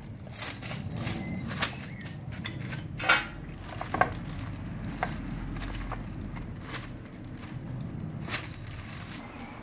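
Scattered knocks and light metallic clinks of a motorcycle's rear wheel being lifted out of the swingarm, with several sharper knocks in the first half.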